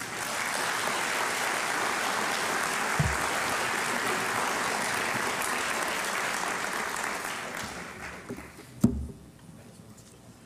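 Audience applauding, dying away after about eight seconds. A short thump a few seconds in and a louder, sharp thump near the end.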